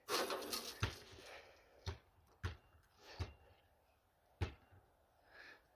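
A basketball being bounced on asphalt before a free throw: several dull thuds about a second apart. A brief rustle comes at the start.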